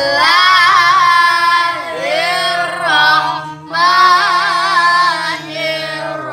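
Children chanting Quran recitation together in a melodic, drawn-out voice, with long wavering held notes and a short breath break about three and a half seconds in.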